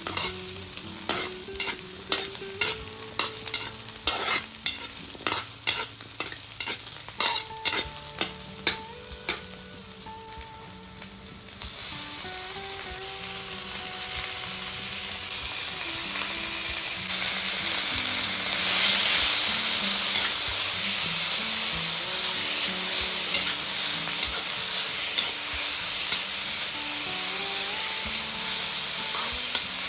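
Stir-frying in a pan: a spatula clicks and scrapes against the pan in quick strokes for about the first eleven seconds. Then a steady sizzle comes in about twelve seconds in and grows louder a few seconds later.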